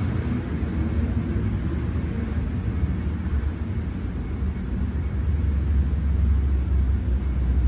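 Steady low rumble of a car driving slowly, road and engine noise heard from inside the cabin.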